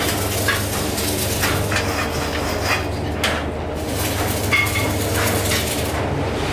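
Steel pipes of a tubular chair frame clinking and knocking against each other at irregular moments as a bent backrest tube is fitted onto the frame, one knock a little past the middle ringing briefly. Under it runs a steady low machine hum.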